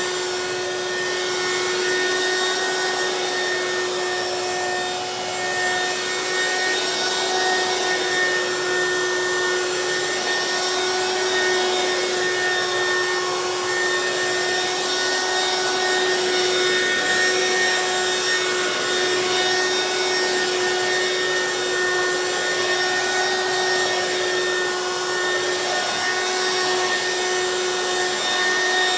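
Hoover Quik Broom Encore S2551 straight-suction stick vacuum running on high speed while it is pushed over a low pile area rug: a steady motor whine holding one pitch over the rush of suction.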